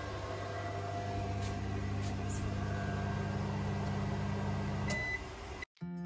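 Microwave oven running off the caravan's lithium battery through a 2000-watt inverter, drawing about 1.5 kW: a steady hum that stops about five seconds in, with a short high beep just before.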